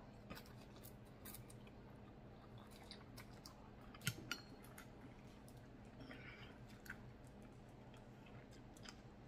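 Faint chewing and wet mouth clicks of someone eating pho noodles, with a few sharper clicks, the loudest about four seconds in, as a metal fork stirs in a glass bowl.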